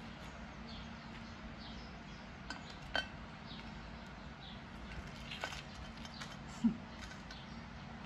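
Kitchen tongs clinking against a ceramic serving dish as fried chicken wings are arranged on it. There are a few light clinks, one of them ringing briefly, and a louder, duller knock near the end.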